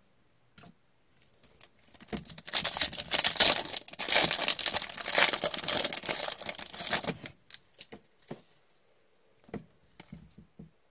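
Foil wrapper of a 2019-20 O-Pee-Chee Platinum hockey-card pack being torn open and crinkled by gloved hands. It makes a dense crackling that starts about two seconds in and stops about seven seconds in. A few light clicks follow as the cards are handled.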